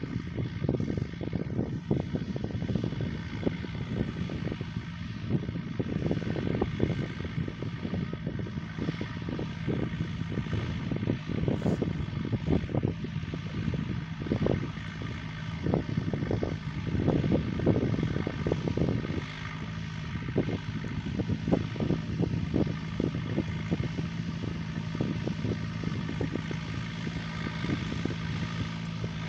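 John Deere 5085M tractor's four-cylinder diesel engine running steadily under load while pulling a moldboard plough through the soil. Irregular low rumbling gusts of wind on the microphone run over the engine tone.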